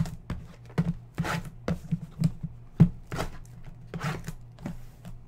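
Shrink-wrapped cardboard trading-card boxes being shuffled and set down on a desk: a string of irregular knocks with the rustle of the plastic wrap.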